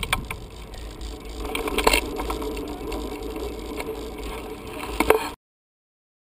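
Bicycle rolling over a bumpy dirt track, heard from the rider's camera: a steady rumble with wind on the microphone and rattling, with a few sharp knocks as it goes over bumps. The sound cuts off suddenly about five seconds in.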